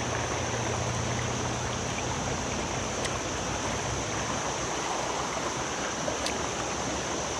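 River water running steadily over a shallow riffle, with two faint clicks about three seconds apart.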